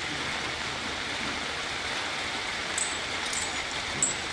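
Steady hiss of falling rain, with a few short high chirps in the second half.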